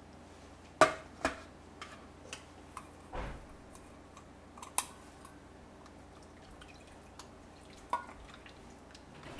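Stainless steel cookware clinking as a small cup is handled over a pot and a small pan: a sharp clink about a second in, a few lighter clinks and taps later, and a duller knock around three seconds, with light dripping of broth.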